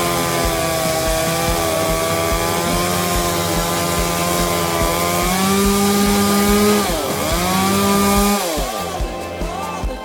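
Two-stroke chainsaw revved up to full throttle and held there. It drops off briefly about two-thirds of the way in, then throttles back near the end and is given a few short blips.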